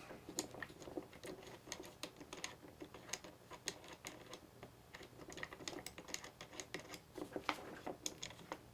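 Faint, irregular small clicks and ticks of a screw being turned out of the end of a PowerFix sliding bar clamp, several a second.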